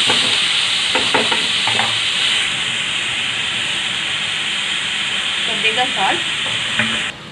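Chopped onions and green chillies sizzling steadily in hot oil in a frying pan, with a few scrapes of a spatula stirring them in the first two seconds. The sizzle cuts off suddenly just before the end.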